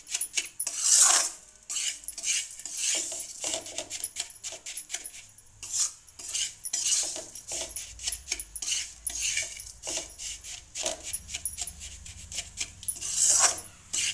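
Metal spatula scraping and stirring dry, coarse-ground moong dal against a metal frying pan as it roasts in a little ghee. The strokes are irregular and come in quick runs, with a few louder scrapes. A faint low hum runs under them from a few seconds in.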